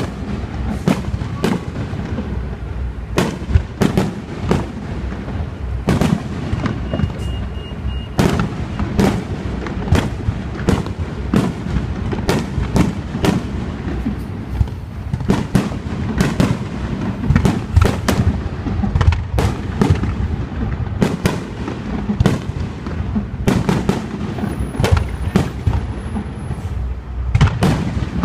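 Fireworks display: a rapid, continuous run of shell bursts and bangs, several a second, over a dense low rumble of overlapping explosions.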